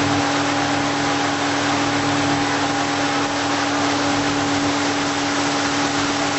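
Tow boat's engine running steadily at towing speed, a constant hum with a clear steady tone, over a rush of wind and water.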